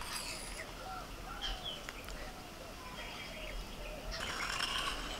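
Birds chirping and calling, with short rising and falling calls throughout and a busier burst of high twittering about four seconds in.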